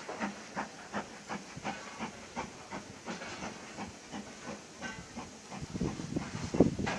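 Steam locomotive approaching: a steady hiss of steam with repeated exhaust chuffs, growing louder near the end.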